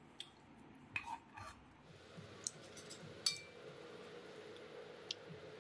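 Stainless-steel serving utensils: a spoon clinking and scraping against steel bowls and plates as food is served, a handful of light clinks, the sharpest about three seconds in, over a faint steady hum.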